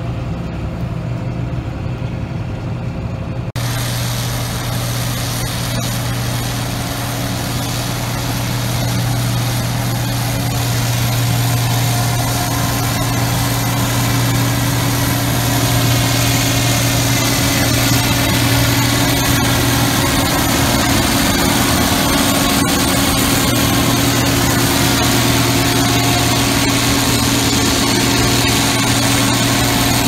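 Case IH 2166 Axial-Flow combine running, a steady diesel engine hum over a wide machine noise. About three and a half seconds in the sound jumps abruptly to louder and fuller, and it swells a little further between about twelve and sixteen seconds in.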